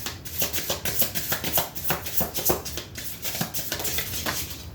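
Deck of tarot cards being shuffled by hand: a quick, uneven run of soft slaps and flicks that stops near the end.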